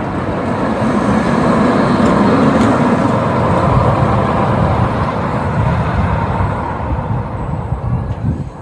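Small children's roller coaster train running along its track, a rumble that swells over the first few seconds and then slowly fades.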